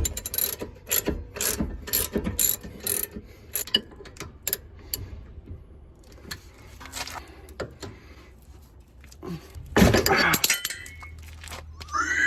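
Ratchet wrench clicking in short irregular strokes as a brake caliper bolt is worked loose, then a louder clattering burst lasting about a second near the end.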